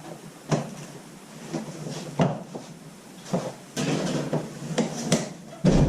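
Shelving parts knocking and clattering as a shelving unit is fitted together by hand: a few separate sharp knocks, then a busier run of knocking and rattling from about four seconds in, and a louder thump near the end.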